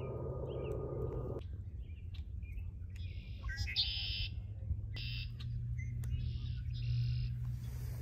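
Red-winged blackbird calling and singing: short high chirps repeat, then from about three seconds in come several harsh buzzy trills, each about half a second long. Under it, a low rumble stops about a second and a half in.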